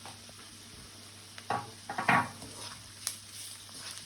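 Fried onions and spices sizzling in oil in a pan while a spoon stirs and scrapes through them, a handful of strokes about halfway through, the loudest about two seconds in.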